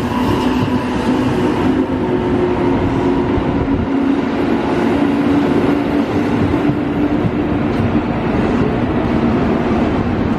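Twelve-car JR Kyushu 415 series electric train pulling out and running past along the platform: a steady rumble of wheels on rails with a steady hum over it.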